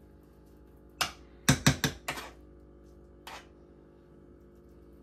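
A metal spoon clinking and tapping against cookware as mashed potatoes are spooned onto meatloaf muffins: a few sharp clicks, three close together about a second and a half in, and a fainter one a little later.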